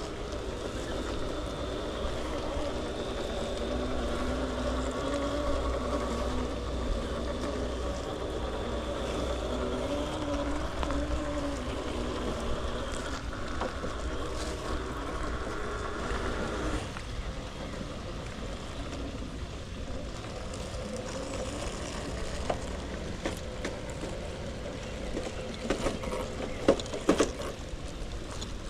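Radio-controlled rock crawler's electric motor and drivetrain whining, the pitch rising and falling with the throttle, steadier and more pitched in the first half and rougher later. A few sharp clicks and knocks near the end.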